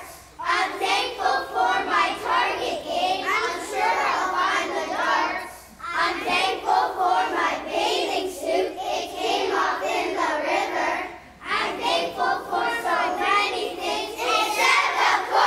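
A choir of young children singing together in unison, in three phrases separated by brief pauses.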